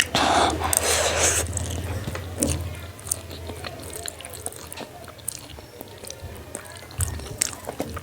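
A person chewing and biting food close to the microphone, with many short wet mouth clicks and smacks. The loudest part is a noisy burst in the first second and a half. A low hum runs underneath and stops near the end.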